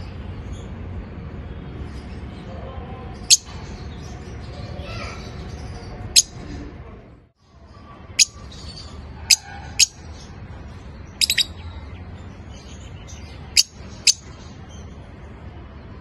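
Parblue mask pied lovebirds (a colour mutation of the masked lovebird) giving short, sharp, high-pitched chirps, one or two at a time every second or two, with a quick run of three a little past the middle. Under them is a steady low hum.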